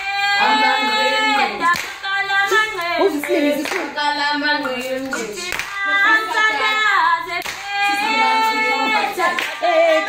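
A group of young women singing together with hand clapping keeping the beat.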